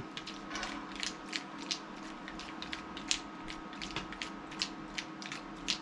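Plastic Hangrees slime toy being shaken hard, its water, slime powder and pom-poms sloshing inside as the plastic clatters in an even rhythm of about three knocks a second.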